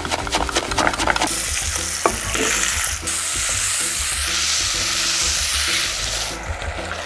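A knife chopping fresh parsley on a wooden board in quick taps, then food sizzling in a hot pan from about a second in. The steady hiss dies away near the end.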